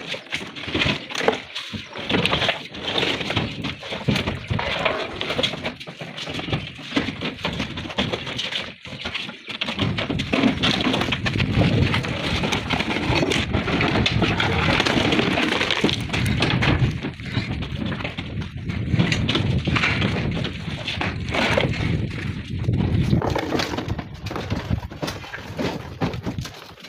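Flat natural stone slabs being unloaded from a truck bed: a busy clatter of stone knocking, clinking and scraping on stone as slabs are lifted, slid and set down on a pile. A steady low rumble sits underneath from about ten seconds in.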